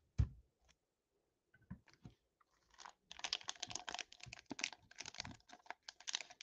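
A soft thump just after the start, then, from about three seconds in, close crinkling and crackling of packaging being handled near the microphone.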